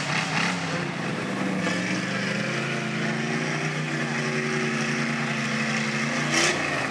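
Lifted Chevy pickup's 350 V8 running under load as it crawls through mud, its pitch rising gradually from about two seconds in. A short burst of noise near the end.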